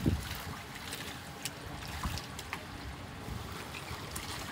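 Shallow muddy water flowing and sloshing in a concrete channel, with a heavy splash from a rubber boot stepping through it right at the start and a few small splashes and drips after.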